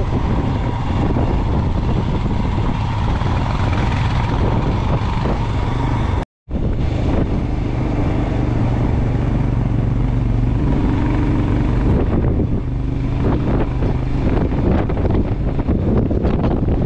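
Motorcycle engine running steadily while riding on a gravel road, with wind noise over the helmet-mounted microphone. The sound drops out completely for a moment about six seconds in.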